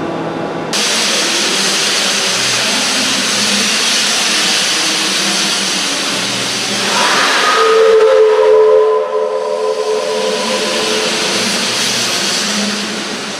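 Steam locomotive 555.0153, an ex-German class 52 2-10-0, venting steam with a loud hiss that starts abruptly just under a second in, as it sets off backwards with its cylinder drain cocks open. About halfway through, its whistle sounds for about three seconds, a chord of several steady tones, and the hiss fades near the end.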